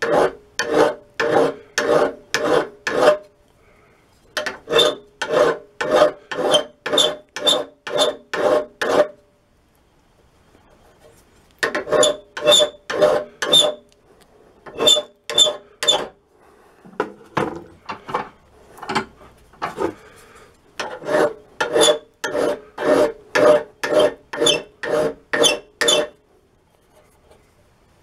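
Fine hand file stroked back and forth across the steel tip of a flat-blade screwdriver held in a vise, squaring off its rounded-down end. About two strokes a second come in runs of several seconds with short pauses between them, each stroke carrying a metallic ring.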